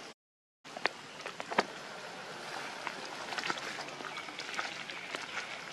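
Steady outdoor hiss with many scattered sharp clicks and light taps, after a brief dropout of all sound about half a second in.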